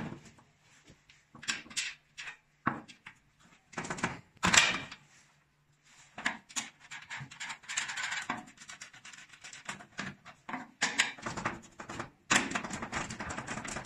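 Scattered knocks, clicks and scrapes of sheet-steel rack panels being handled and fitted into place, louder and busier in the second half.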